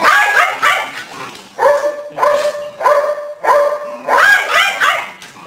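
Dog barking repeatedly in a quick, even run of short barks, about two a second.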